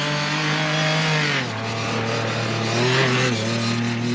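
Off-road race buggy's engine running hard as it drives across the paddock. The engine note drops in pitch about a second and a half in as the revs fall, climbs briefly near three seconds, then drops again.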